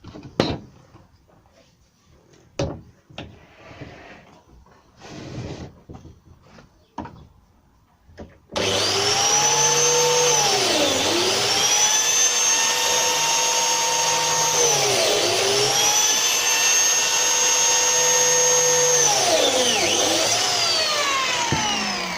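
A handful of knocks and clicks from handling the plywood panels. About eight seconds in, a biscuit jointer's motor starts up loud. Its pitch dips and recovers three times as it is plunged into the 18mm plywood, then it winds down near the end.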